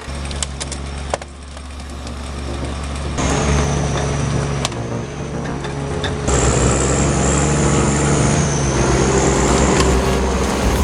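Machine engines running, with a high steady whine. The sound changes abruptly about a second in, again about three seconds in and again about six seconds in, and it grows louder with each change.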